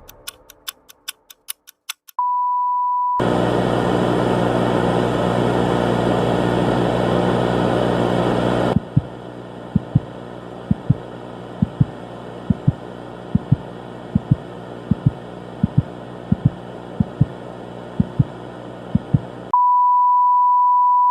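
Edited outro sound effects. A ticking fades out, then a steady electronic beep. A loud burst of static-like hiss follows, dropping after a few seconds to a quieter hiss with scattered sharp clicks, and the steady beep returns near the end.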